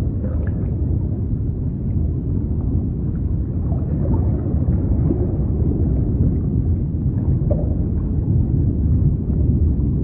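Underwater sea ambience: a steady, muffled low rumble of moving water, with faint short calls here and there above it.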